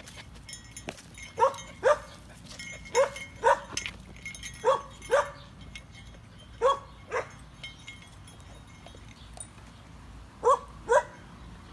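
A dog barking in pairs of short barks about half a second apart, five pairs in all, with soft crunching clicks of a bull terrier chewing kibble from a bowl in between.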